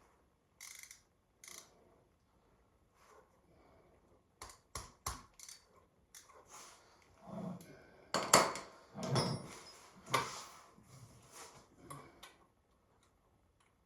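Metal tools and engine parts clinking and clattering as they are handled during an engine teardown: scattered sharp clicks, with a busier, louder run of clanks about eight to ten seconds in.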